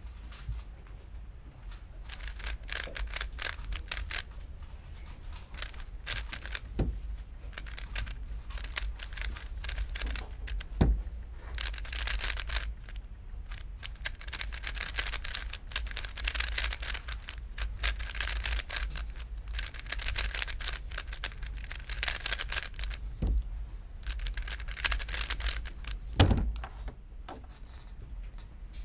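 Plastic 3x3 speedcube being turned fast in the hands: rapid flurries of clicking and clacking turns with short pauses between them, and a louder thud near the end as the cube is set down on the mat.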